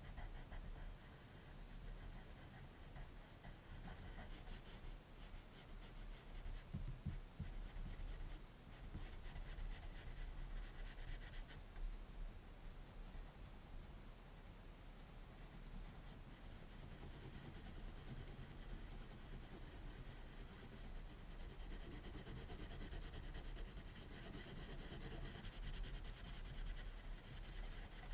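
Prismacolor colored pencil scratching across drawing paper in rapid, short shading strokes, laying down dark tone.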